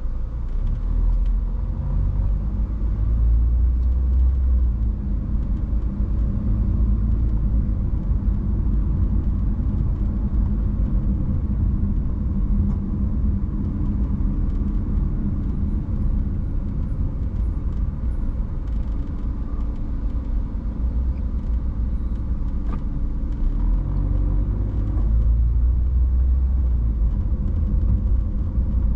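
Car driving slowly, a steady low engine and road rumble that grows a little louder near the start and again near the end.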